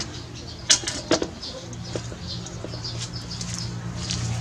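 Stainless steel bowl clinking against the metal steamer pot twice as it is set down inside, followed by a low steady hum, with birds chirping.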